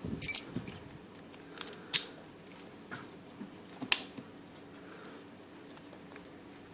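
Small, sharp metallic clicks and taps from handling a Corbin Russwin large-format interchangeable lock core and its operating key, about eight of them spread over the first four and a half seconds, the sharpest one about four seconds in.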